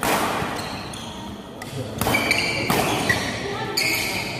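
Badminton doubles rally: several sharp racket strikes on the shuttlecock and short shoe squeaks on the court, with crowd noise in the background.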